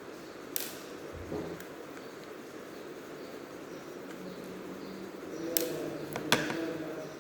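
A few sharp clicks and light knocks from hand tools and plastic laptop parts being handled during a laptop teardown, with the loudest clicks near the end, over a steady background hum.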